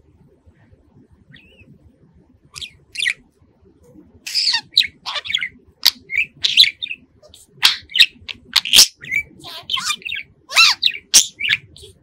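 Blue budgerigar chirping and whistling: after a quiet start, a couple of short calls, then from about four seconds in a rapid, busy run of chirps and whistles.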